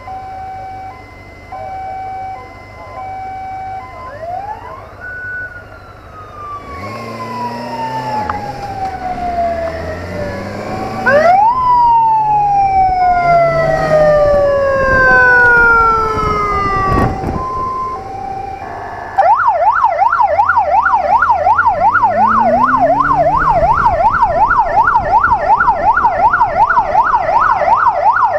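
Police motorcycle's electronic siren. It starts as an intermittent beeping tone, then gives several wails that rise quickly and fall slowly, and about two-thirds of the way in switches to a fast warbling yelp. Under it the motorcycle's inline four-cylinder engine revs as it accelerates.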